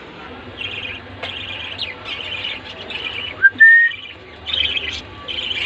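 Budgerigars chirping and chattering in quick, repeated short calls, with one loud, clear rising whistle about three and a half seconds in.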